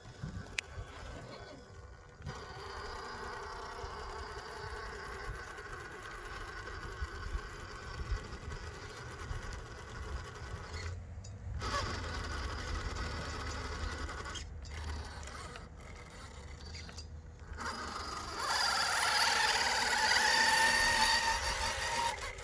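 Axial SCX10 III RC crawler's 3300kv AXE brushless motor and geared drivetrain whining as it crawls over rocks and dirt. The whine drops out briefly a few times and is loudest near the end.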